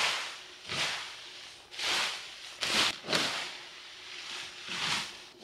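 A leaf rake swept through fallen leaves in repeated swishing strokes, about one a second.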